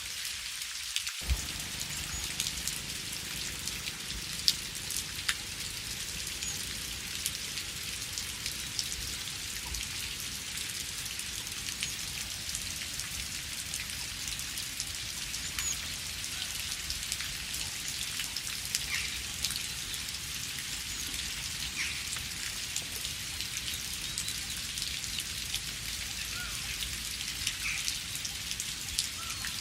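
Steady forest rain: an even hiss of falling rain dotted with many single drops ticking, a few of them louder and closer. A low rumble comes in abruptly about a second in.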